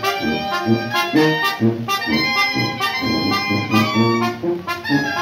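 Live Mexican brass band (banda) playing a tune at a steady beat. The sousaphone pumps bass notes on the beat under the brass and reed melody, with drums and cymbals keeping time.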